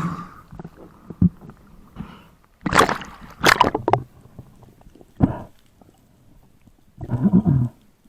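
Water splashing and gurgling around a spearfisher in the sea, in several short loud bursts a second or two apart.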